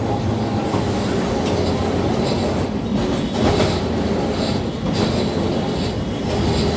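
Kolkata electric tram car running along its street track, heard from inside the saloon: a steady rumble of wheels on rail and running gear, with a few sharp knocks from the rails.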